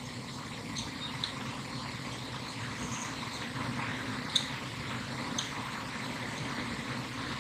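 Interchangeable-blade knife whittling a small birch stick: a few faint, short scraping ticks as the blade shaves the wood, the clearest about four and a half seconds in, over a steady low outdoor rumble.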